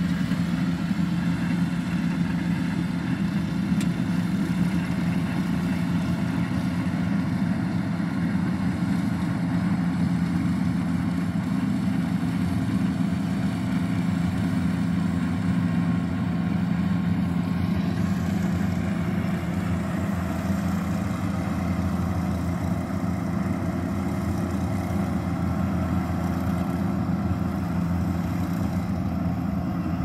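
Combine harvester's engine running steadily while harvesting rice: a continuous low hum with no change in pitch.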